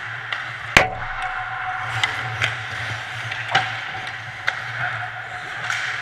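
A handful of sharp clacks of hockey sticks and puck on the ice as play comes at the net, the loudest about three-quarters of a second in, over a steady low hum.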